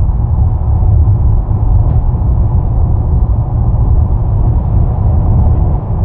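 Road noise inside a car travelling at motorway speed: a loud, uneven low rumble.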